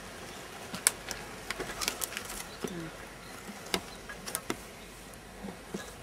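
Scattered light clicks and crackles of thin plastic packing strips being handled and pressed into place while gluing with a hot glue gun, at irregular intervals.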